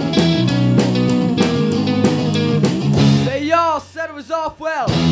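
Rock band playing on electric guitars and drums, with steady cymbal hits. About three seconds in the full band drops out, leaving a thinner line of notes that bend up and down in pitch.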